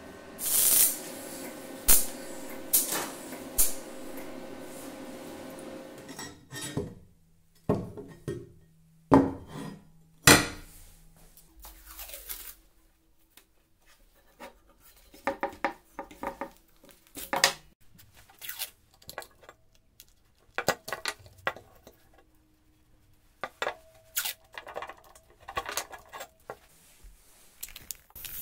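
Steel parts clanking and clinking as they are knocked and handled: sharp, ringing metal strikes, loudest in the first ten seconds, then lighter clinks.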